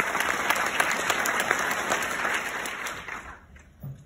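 Audience applause, many hands clapping, dying away about three seconds in.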